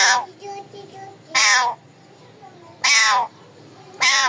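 Pet parrot giving four loud, harsh calls, evenly spaced about a second and a half apart.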